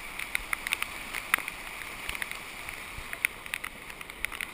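Steady rush of floodwater pouring across a road in heavy rain, with scattered sharp ticks of raindrops striking the camera.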